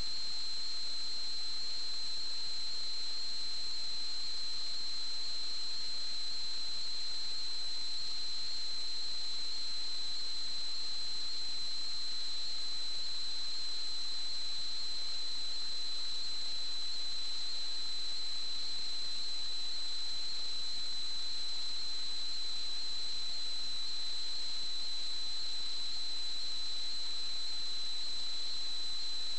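Steady high-pitched electronic whine over a constant hiss: electrical noise from the sewer camera's recording unit while its screen shows no video signal.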